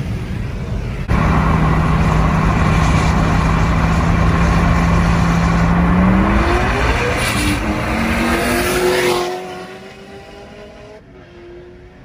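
A car engine heard from inside a moving car, with road noise. It jumps suddenly louder about a second in and holds a steady drone. From about six seconds in its pitch climbs under hard acceleration, then falls away sharply about nine seconds in to a quieter steady cruise.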